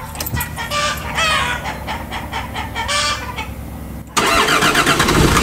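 Hens clucking twice over a steady low hum, then about four seconds in the SUV's engine comes in suddenly and loudly and keeps running steadily.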